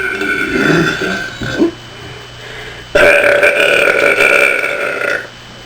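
A young woman burping on purpose twice: a shorter burp, then a little over a second later a longer, louder one lasting about two seconds.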